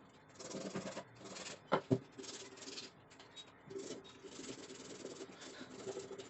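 Repeated scraping strokes, as of abrasive hand work on metal, with two sharp knocks close together about two seconds in.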